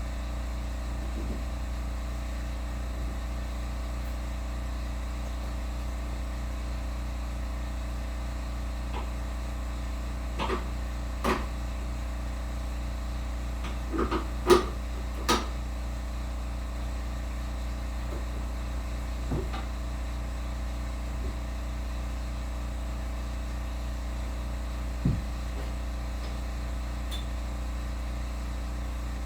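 Steady machine hum in a knife-making shop, with a few short metallic clicks and knocks, a cluster of them about halfway through, as the grinder's articulating work rest is adjusted by hand.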